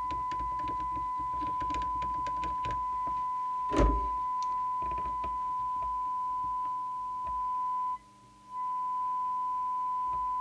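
Steady high-pitched test tone from a Maxcom 30E CB radio receiving a modulated signal from a signal generator, as its detector coil is turned for maximum audio. Light clicks and a knock come from the trimming tool on the board, and about eight seconds in the tone dips sharply for half a second and returns.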